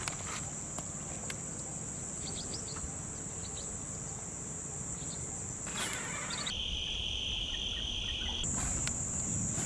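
Insects chirring in a steady, high-pitched drone. About two-thirds of the way through, a lower-pitched chirring takes over for a couple of seconds, then the high drone returns.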